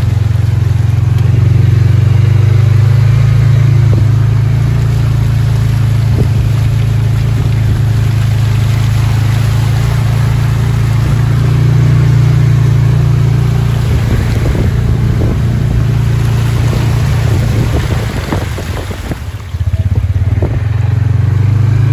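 Vehicle engine droning steadily while driving, heard from inside the cab, with a steady hiss of rain and tyre noise. A run of knocks and rattles comes about two-thirds of the way through, as over rough ground.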